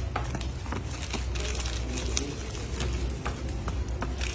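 Quick, irregular light clicks and paper rustling as bundles of hand-rolled beedis are handled and wrapped in paper labels, over a steady low rumble.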